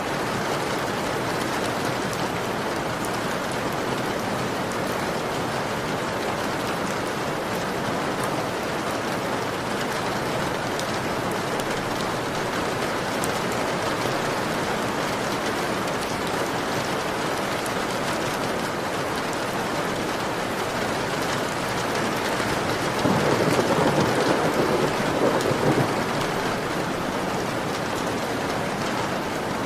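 Heavy rain beating steadily on a window pane. About 23 seconds in, it swells louder for about three seconds.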